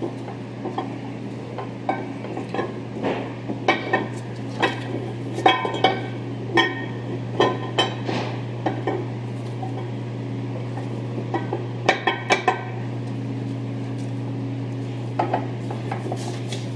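Metal parts of a Toyota Land Cruiser front differential clinking and knocking as the two case halves are wiggled and rocked together to seat. The clicks come in quick clusters, thickest over the first nine seconds and again around twelve seconds, over a steady low hum.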